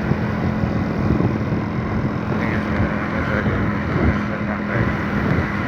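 A vehicle engine running steadily while on the move, with rough wind noise on the microphone over it.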